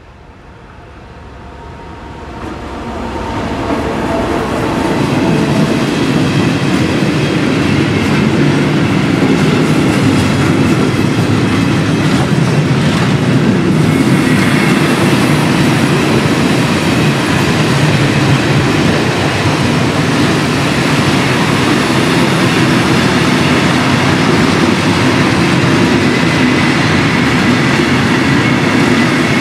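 Vossloh G2000 BB diesel-hydraulic locomotive approaching and passing close by, its sound rising over the first few seconds. Then a long freight train of loaded timber wagons rolls steadily past, the wheels running on the rails.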